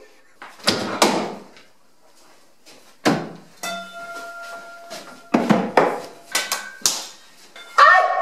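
Sharp knocks and bangs of hard objects at irregular intervals, about eight in all, with a steady tone held for about a second and a half in the middle.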